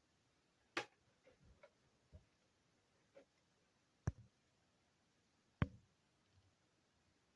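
Sparse small clicks and taps of hand tools and screws being handled while a laptop is taken apart, with three sharper clicks about a second in, around four seconds in, and again a moment later, in an otherwise quiet room.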